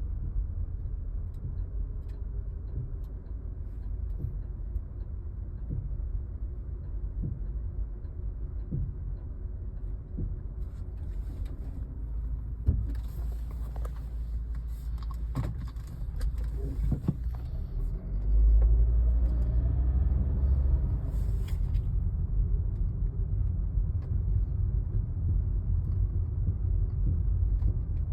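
Volvo XC70 in motion, a steady low rumble with sharp knocks from the drivetrain at irregular intervals, a few seconds apart; the rumble swells for a few seconds past the middle.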